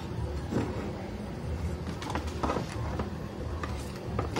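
Handling noise from a CRT TV circuit board being turned over by hand: several short knocks and scrapes over a steady low rumble.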